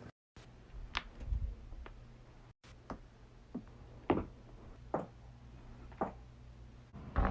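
Joints cracking during a chiropractic adjustment: a series of short, sharp pops, about nine spread over a few seconds, the loudest about four seconds in.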